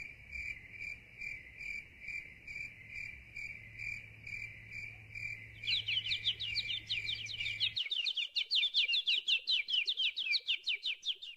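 Crickets chirping: a steady high chirp pulsing about twice a second. About halfway, a fast run of short chirps that slide downward, some five or six a second, joins in.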